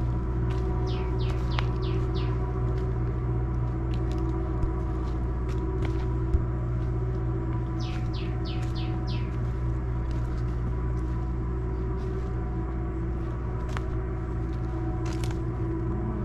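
Steady mechanical hum made of several fixed tones, with a bird calling a quick run of five short falling chirps twice, about a second in and again about halfway through.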